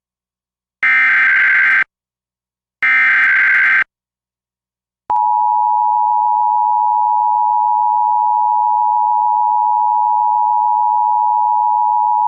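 Emergency Alert System test signal. First come the last two of three identical SAME header data bursts, each about a second long with a second's gap between them. Then, after about a second of silence and about five seconds in, the steady EAS two-tone attention signal begins and holds.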